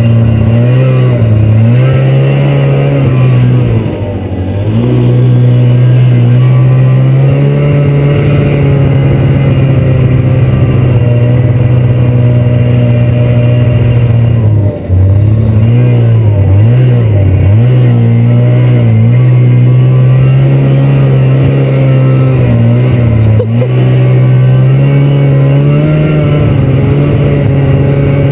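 Snowmobile engine running at steady speed, its pitch dipping and climbing back briefly about four seconds in, several times in quick succession around the middle, and once more later.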